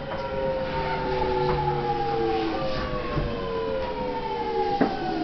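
Electric train's traction motors and inverter whining in several tones that slide slowly down in pitch as the train brakes into the station, with a few short knocks over the platform hubbub.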